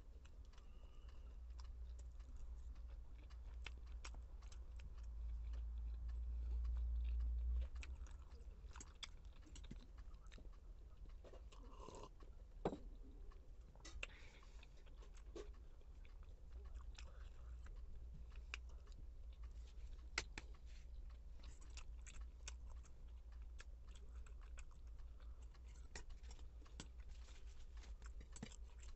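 Close-up eating sounds: soft chewing of Maggi noodles and roti, with many small mouth clicks. Two sharper clicks stand out, one a little before halfway and one about two thirds in.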